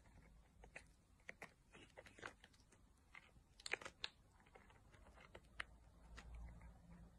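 Faint clicking chewing and licking of a cat biting at a plastic treat packet held to its mouth, with a quick cluster of louder clicks about halfway through.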